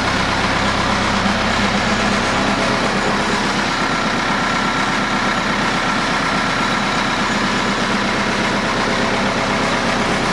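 Ford 6600 tractor's diesel engine idling steadily, heard close up. A faint high whine comes in for a few seconds in the middle.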